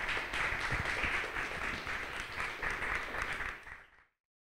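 Audience applauding, a dense patter of many hands clapping, which fades out near the end.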